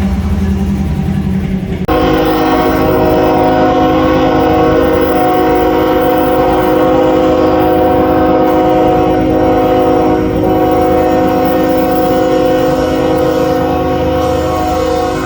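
Diesel locomotive's multi-chime air horn sounding one long, steady chord, cutting in suddenly about two seconds in over the low rumble of the train.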